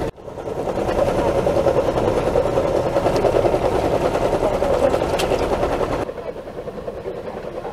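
A small engine running steadily with a dense drone. It drops abruptly in loudness and loses its high end about six seconds in.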